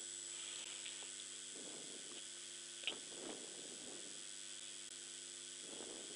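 Quiet room tone: a steady hiss with a low electrical hum. There is one faint click about three seconds in.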